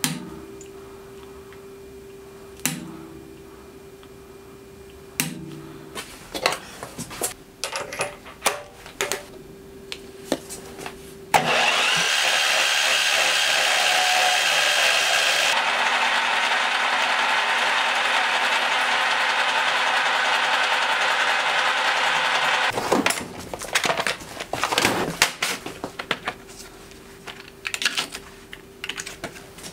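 Three sharp metal strikes on a centre punch marking the steel, then a run of small clicks. After that comes about eleven seconds of a machine-driven drill bit boring into the steel body, a steady loud noise that thins slightly a few seconds in. It ends in light clinks and rattles of small metal tools being handled.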